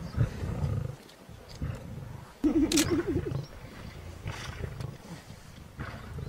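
Big cat growling in a series of low bursts, with a louder, wavering growl about two and a half seconds in.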